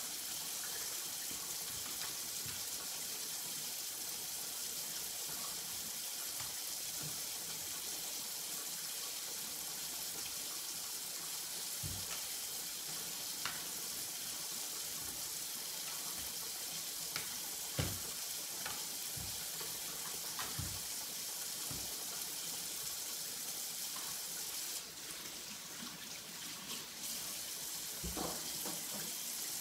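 Knife tapping now and then on a cutting board while fat is trimmed from raw oxtails, a handful of short clicks over a steady hiss.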